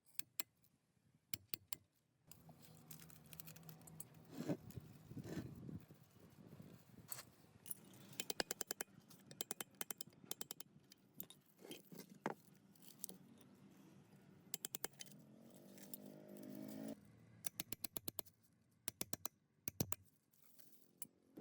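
Small metal parts clinking, rattling and scraping as they are handled, in quick runs of light clicks, over a faint low hum.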